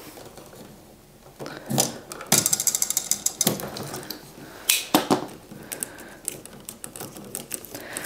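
A knife scoring down the plastic sheath of an electrical cable: a quick run of scratchy clicks about two seconds in, then scattered knocks and rustling as the cable and its wires are handled.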